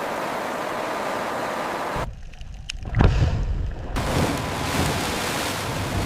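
Wind and sea rushing, broken for about two seconds in the middle by a deep low rumble with a heavy thud about three seconds in.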